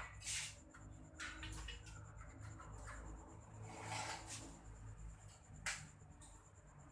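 Soft, intermittent scraping and rubbing, with one sharp click near the end, over a low steady hum.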